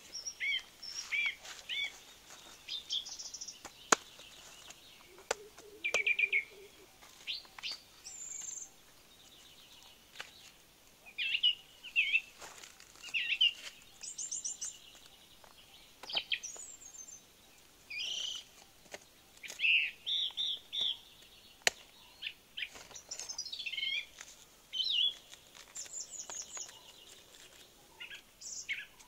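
Wild birds chirping and calling over and over: short high chirps, quick trills and whistled notes from several birds. A few sharp clicks sound in between.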